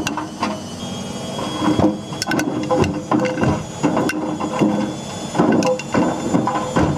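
Hard objects clattering and knocking irregularly inside the turning drum of a Whirlpool WWDC 7210/1 washing machine, over the steady hum of the machine's drum motor.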